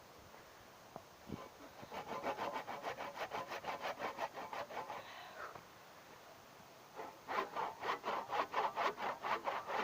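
Hand saw cutting through a spruce log in quick, rhythmic back-and-forth strokes. A couple of small knocks come about a second in, the sawing starts about two seconds in, pauses briefly near the middle, then resumes.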